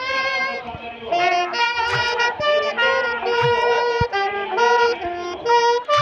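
A saxophone and a trumpet playing a melody together in held notes.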